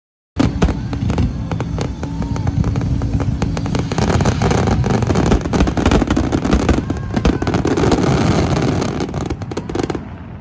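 Aerial fireworks shells going off in a rapid, dense barrage, overlapping booms and crackle with no gap between them, dropping quieter near the end.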